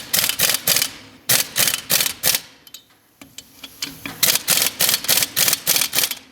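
Impact wrench hammering in short repeated bursts of rattling, with a brief pause about halfway through, as it runs lug nuts onto the wheel studs.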